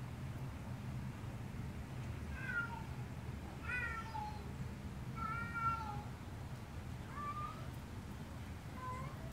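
Tomcat's courting call: a series of about five drawn-out meows starting about two seconds in, each under a second long, some sliding down and some rising in pitch.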